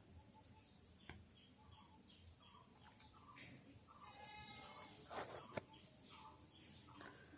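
Near silence, with faint high chirps repeating evenly about two or three times a second in the background and a brief faint rush of noise about five seconds in.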